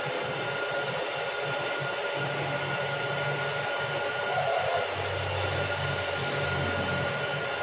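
Milling machine drilling a 1-inch hole through a ball hammer head, its spindle running steadily with a high whine over a low hum.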